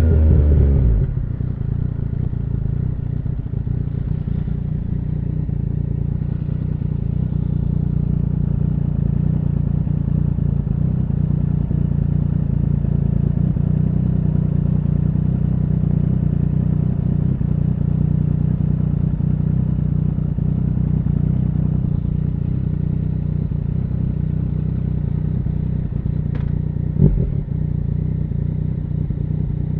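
2017 Yamaha MT-09's three-cylinder engine through an Akrapovic full exhaust system: the revs fall away in the first second, then it idles steadily and evenly. A single sharp knock comes near the end.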